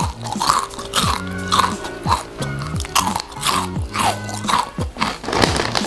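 Crunchy chewing of a twisted snack stick close to the microphone, over background music with a steady beat.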